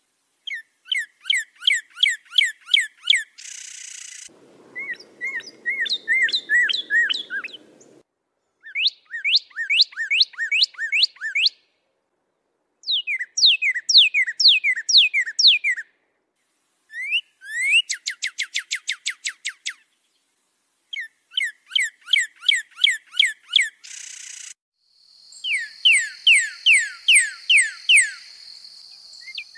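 Recorded songbird song played in short bursts, each a rapid series of repeated downslurred whistled notes, broken by clean pauses. A steady high whistle-like tone runs under the last few seconds.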